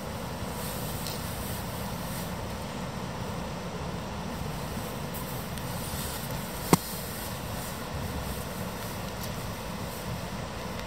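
Steady hum and hiss of electric trains standing at a station platform with their auxiliaries running, with one sharp click about two-thirds of the way in.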